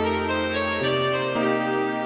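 Background music: slow, sustained keyboard chords, the bass note changing about a second in.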